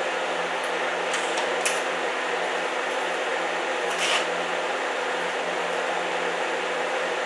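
TIG welder running: a steady electrical hum with the hiss of the arc, and three sharp crackles, about 1, 2 and 4 seconds in. The spitting of the arc could be leftover contamination or the tungsten touching the work.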